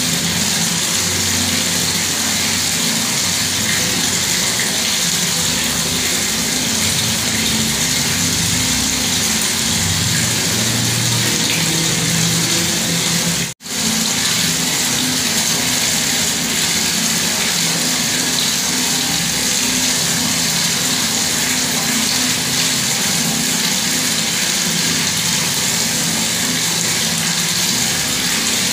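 Bathroom water tap running steadily, its stream splashing down. The sound cuts out for an instant about halfway through.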